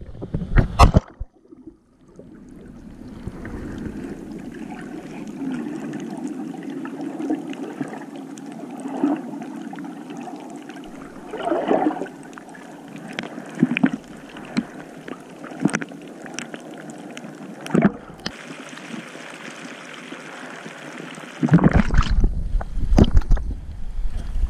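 A GoPro's mic underwater in its sealed housing: a muffled, steady hiss with scattered gurgles and clicks. It opens with a brief rush of surf, and about three seconds before the end the camera breaks the surface, bringing back loud rushing water and wind noise on the microphone.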